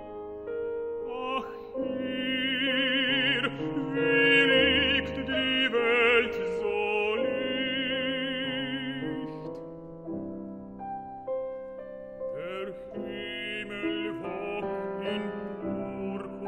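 Classical baritone singing a German art song with wide vibrato over piano accompaniment. The voice pauses for a few seconds a little past halfway while the piano carries on.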